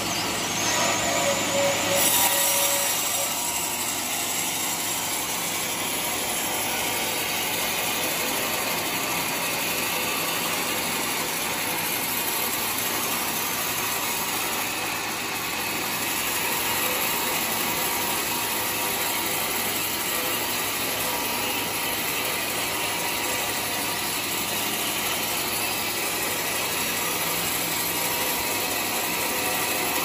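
Band sawmill running steadily while it saws a teak log into planks, a little louder in the first couple of seconds.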